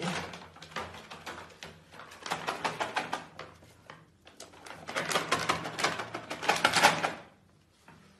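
A pug puppy's claws scrabbling and clicking rapidly on a wooden parquet floor in three bursts, the last and loudest stopping about a second before the end.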